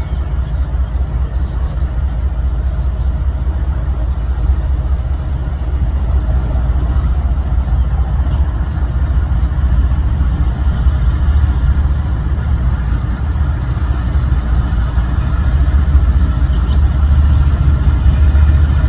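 Diesel freight locomotives running: a steady low engine rumble that slowly grows louder as the lead units approach.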